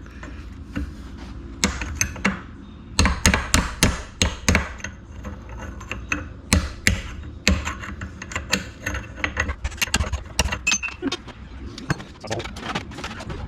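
Repeated hammer blows on steel, a chisel being driven into the cut-grooved bearing race on a wheel hub to crack it off. The strikes are sharp metallic hits, irregular and in quick clusters, with short pauses between.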